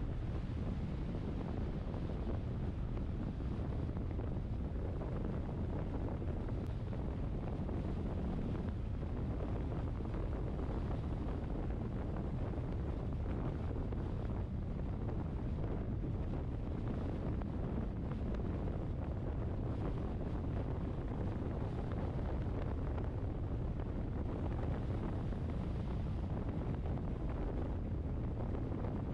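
Steady low rumble of wind buffeting the action camera's microphone, mixed with the road noise of a moving vehicle.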